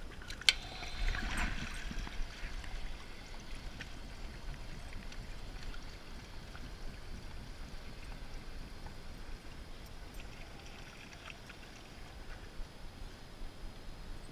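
Water splashing and sloshing briefly about a second in, then a faint, steady trickle of running water.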